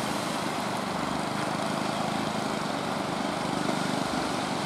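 Small engine of an outrigger fishing boat running steadily under surf and rushing water.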